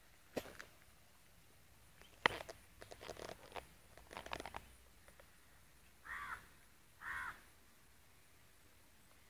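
A crow cawing twice, about a second apart, in the second half. Before that, scattered clicks and rustling, the loudest a sharp click about two seconds in.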